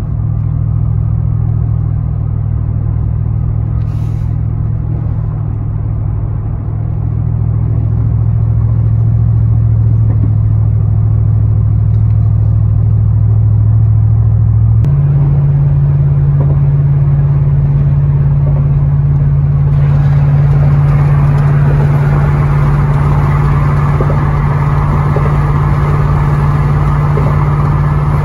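Steady low drone of a truck's engine and tyres at highway speed, heard from inside the cab. The drone shifts suddenly about halfway through, and more road hiss comes in for the last third.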